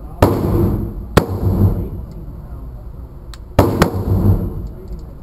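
Rifle shots echoing in an indoor range: four sharp reports, one a quarter second in, another about a second later, then a quick pair near the end.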